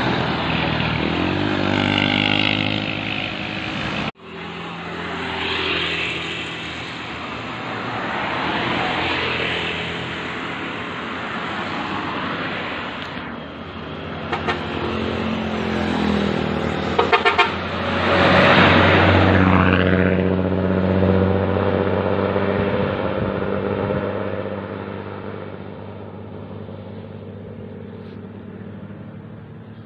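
Road traffic driving past one vehicle after another: cars, motorcycles and a bus, each engine swelling and fading as it goes by. The sound breaks off for an instant about four seconds in, and the loudest pass comes about two-thirds of the way through before it dies down.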